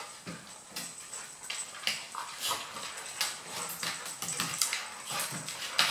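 A Maltese and a Golden Retriever scuffling in play on a hardwood floor: their claws click and scrabble on the boards in an irregular string of short taps.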